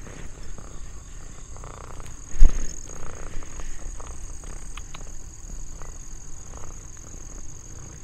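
Steady high-pitched insect chorus, with one loud low thump about two and a half seconds in and a few faint clicks.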